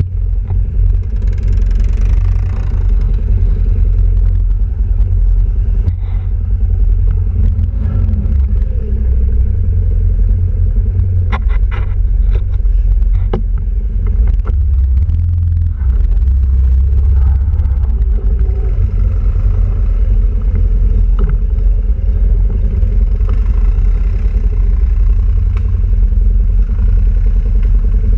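Quad bike (ATV) engine running as it rides a muddy trail, a steady low rumble, with a few sharp knocks and rattles about eleven to thirteen seconds in.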